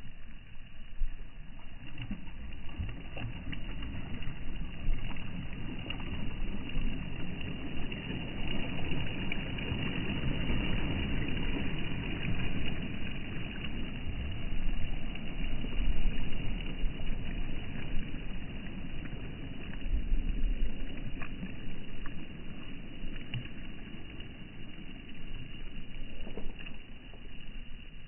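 Small sea waves washing up onto a pebble-and-sand shore and drawing back, swelling and ebbing in slow surges, loudest around the middle, with a few faint clicks.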